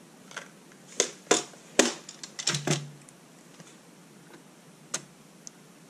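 Scattered sharp clicks and light taps, a quick cluster in the first three seconds and two more near the end: small 3 mm screws and a screwdriver bit being handled against the box's wooden and acrylic parts.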